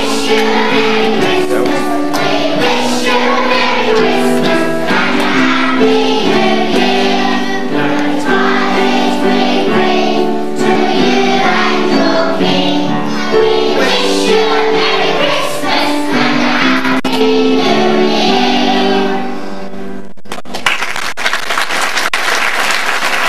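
A group of children singing a song together with musical accompaniment. Near the end the song stops and the audience starts clapping.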